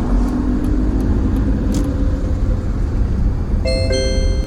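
Steady low road and engine rumble inside a moving car's cabin. About three and a half seconds in, the car navigation unit sounds an electronic chime, two tones stepping in one after the other.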